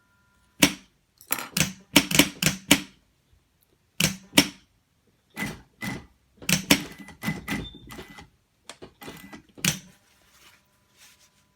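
A series of sharp, irregular clacks and clicks, some single and some in quick clusters of three or four, with pauses of a second or two between them.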